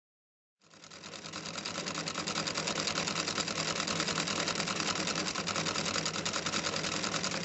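Electric sewing machine stitching a wide, short-length zigzag. It starts about half a second in, picks up speed over the next second, then runs at a steady fast stitch rate.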